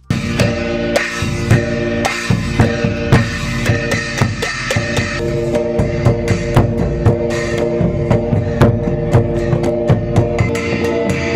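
Rock-style band music with a drum kit and guitar over steady sustained chords, beginning suddenly and playing on with a regular beat.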